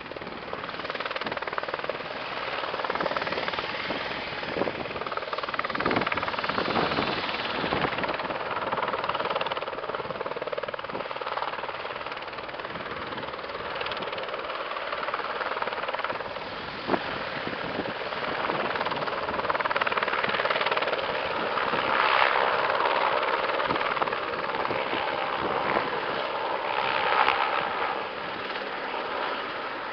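Firefighting helicopter carrying an underslung water bucket flying low: steady rotor chop and engine noise that swells louder and eases off as it moves overhead.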